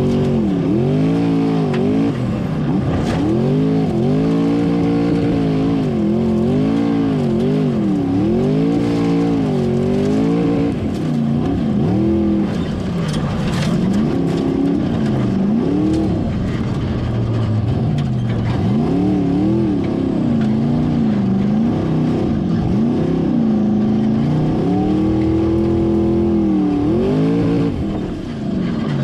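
Formula Offroad car's engine heard on board, revving up and down again and again as the throttle is worked on a hill climb, with a short drop in revs near the end.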